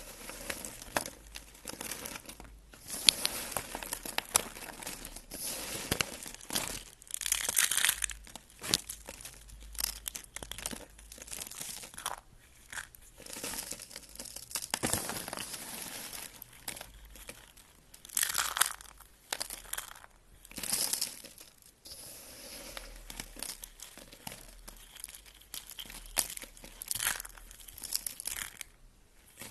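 Close-up crisp crunching and crackling of a material being squeezed, cut and pulled apart by hand, in irregular bursts of a second or two with short pauses between.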